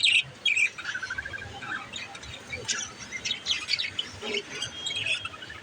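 Pet budgerigars chirping and warbling in a rapid, continuous stream of short high chirps.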